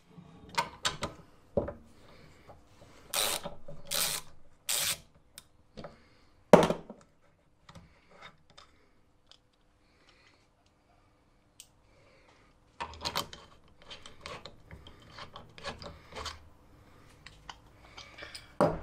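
Brake master cylinder parts and hand tools being handled and clamped in a bench vise: scattered knocks and clicks, three scraping rubs, and a sharp knock about six and a half seconds in. A quieter spell follows, then more clicking and scraping, ending in another loud knock.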